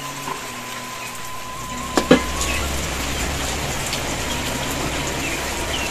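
Steady rain falling, an even hiss, with soft background music notes fading under it. A single sharp knock about two seconds in.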